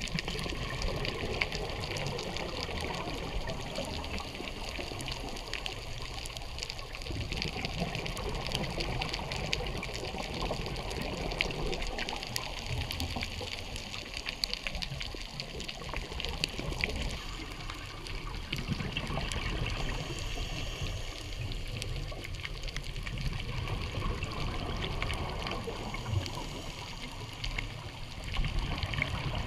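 Underwater ambience of the sea over a rocky reef: a steady wash of water noise with a low rumble and a constant fine crackle of clicks.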